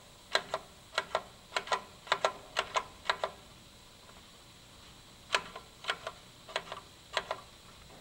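Repeated clicks of a pushbutton on a Viking VFR-400 release control panel, each press a sharp click and release pair. About six presses come in quick succession, then after a pause of about two seconds four more, as the button scrolls through characters on the display.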